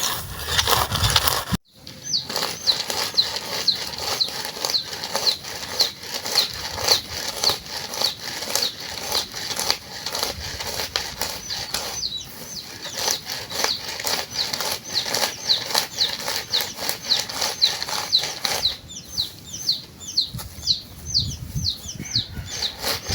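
Roasted groundnuts rubbed to loosen their red skins: a rhythmic rustle, about two or three strokes a second, each stroke with a short high chirp. It breaks off briefly about a second and a half in and thins out about halfway through.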